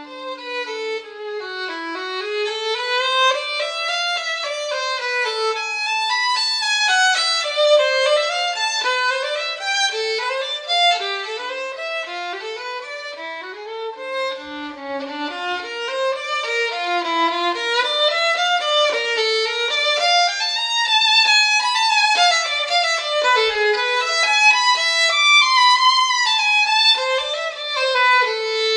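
Background music: a violin playing fast runs of notes that rise and fall.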